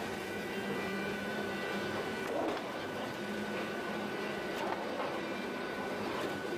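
Automated woodworking production line for log-cabin planks running: a steady machinery hum with a constant high whine, broken by a few short knocks and clatters.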